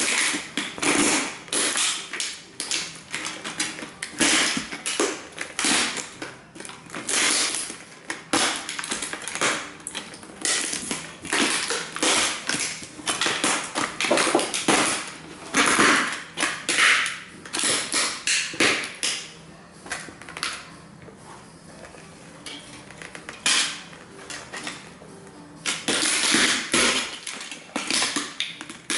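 Cowboy boots stamping on and crushing model train buildings: repeated crunching and crackling as the thin walls and roofs break and the pieces are ground underfoot. There is a quieter stretch about two-thirds of the way through.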